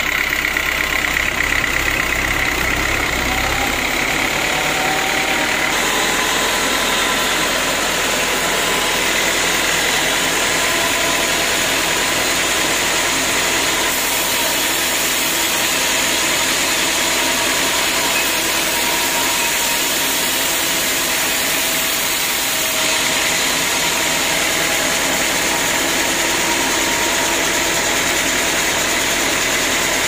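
Multi-cylinder engine that belt-drives a band sawmill, running loud and steady to power the saw.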